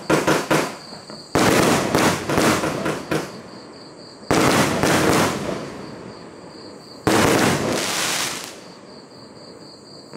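Aerial firework shells bursting overhead. The tail of one burst is heard at the start, then three more sharp bursts come at about one and a half, four and seven seconds in. Each trails off over a second or so in a quick run of pops.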